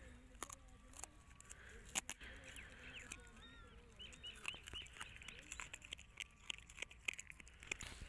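Puppy chewing and crunching on cut green fodder stalks: a string of small, irregular crunches and clicks.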